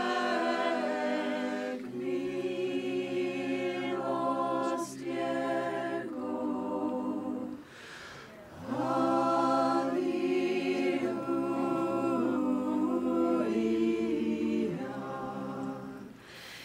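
A cappella choir singing long-held chords in unhurried phrases, with a short pause for breath about halfway through.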